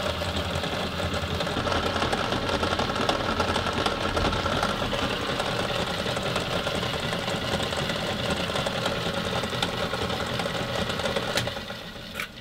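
Old Tauco / Delta DP220 bench drill running under its electric motor, not terribly smooth because the drive belt is basically totally wrecked. Near the end it runs down and fades, with a click just before it stops.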